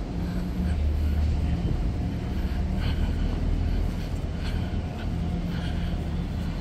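Low steady machine rumble, with a faint hum running through it and a few light ticks over the top.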